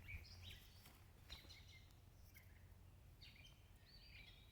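Near silence with faint bird chirps: scattered short calls, a few about a second in and a busier cluster near the end.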